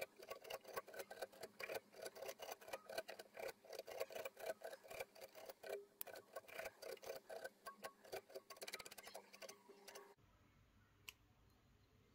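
Hook-side Velcro on a wooden ice cream stick rasping over a fly's black synthetic dubbing body, brushing out the fibers. It makes several quick scratchy strokes a second and stops about ten seconds in.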